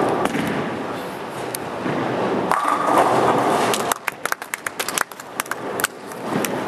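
Bowling ball rolling down the lane with a steady rumble, then pins clattering in a rapid scatter of sharp clicks about four seconds in as the ball hits the rack.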